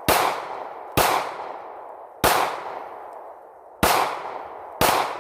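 Handgun fired five times in a steady string, about one to one and a half seconds apart, each shot followed by a fading echo.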